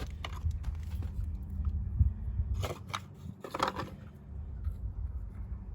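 Small engine parts being handled and fitted: a few light clicks and two short scraping rustles, over a steady low hum.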